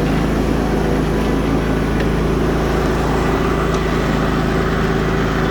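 Exmark Lazer Z S-Series zero-turn mower's 25 hp Kohler Command Pro EFI V-twin engine running steadily above idle, with the cutting blades engaged and spinning.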